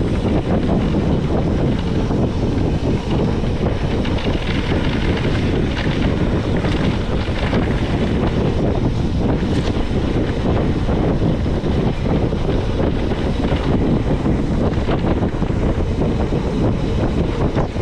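Steady wind buffeting on a handlebar-mounted action camera's microphone at about 35 km/h on a mountain bike, mixed with the rumble of tyres rolling over a dirt track.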